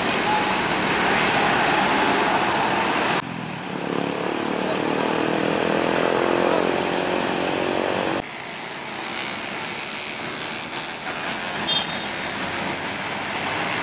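Mercedes-Benz OH bus engine running as the coach pulls away, its pitch rising slowly as it gathers speed. The sound changes abruptly twice, about three and eight seconds in.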